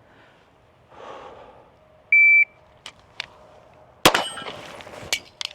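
A shot timer's start beep, then about two seconds later a single 9mm pistol shot from a Staccato P, with the steel target ringing briefly after it. A few sharp clicks follow near the end.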